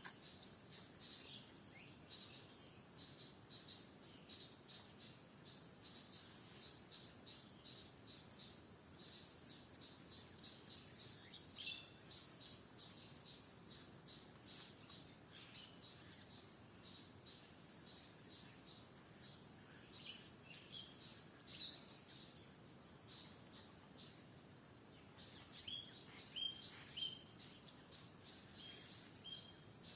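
Faint chorus of wild birds chirping and calling, short high notes scattered irregularly and in busier bursts, over a steady high-pitched drone.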